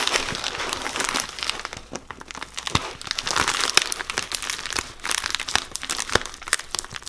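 White plastic poly mailer bag crinkling and rustling as it is handled and folded, in dense, irregular crackles.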